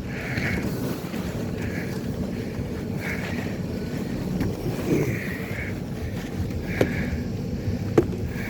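Snow being shoveled: a snow shovel scraping and pushing through fresh snow, with heavy breathing recurring about every second and a half and a couple of sharp knocks near the end.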